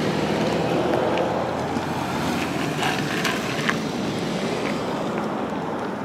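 Steady road traffic noise from vehicles running nearby, slowly fading, with a few faint light clicks.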